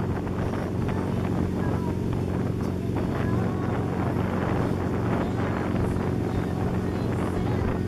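Towing wake boat's engine running steadily at speed, with wind noise on the microphone and the rush of the churning wake.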